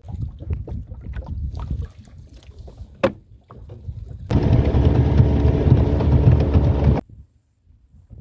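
Boat motor running steadily for a few seconds, starting and stopping abruptly. Before it come low rumbling water and boat noise with scattered knocks and one sharp click.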